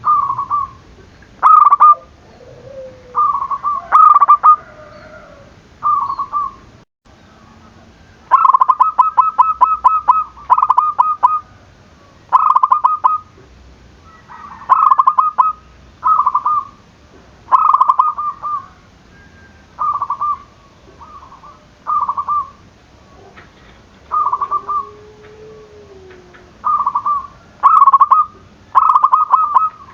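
Zebra dove (perkutut) cooing in short repeated phrases, each a quick cluster of notes, about every one and a half to two seconds. Around the middle comes a longer rapid stuttering run of notes.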